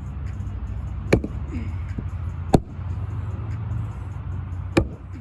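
Axe chopping firewood: three sharp strikes, roughly a second and a half to two seconds apart, over a steady low rumble.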